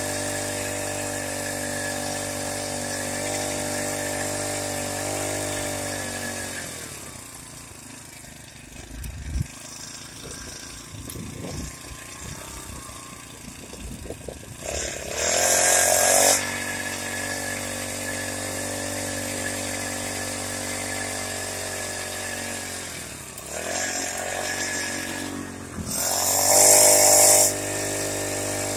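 Small motorized-bicycle engine running steadily, then slowing and dying away about six seconds in. Several seconds of irregular knocks and rattles follow, then a brief loud noisy burst, and the engine note returns and runs steadily. Near the end it dips and there is another brief loud burst.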